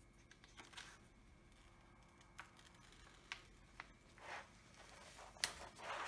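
Protective release paper being peeled back by hand from the adhesive surface of a diamond painting canvas: faint paper rustling and crinkling with scattered small ticks, and a sharper click near the end.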